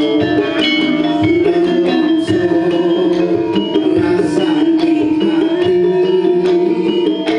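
Live campursari music: Javanese gamelan bronze metallophones ringing in a steady pattern over kendang hand-drum strokes.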